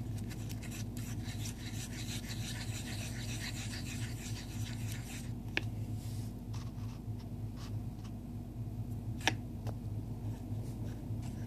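A utensil scraping and stirring a glue-and-paint slime mixture in a bowl, with two sharp clicks about five and nine seconds in, over a steady low hum.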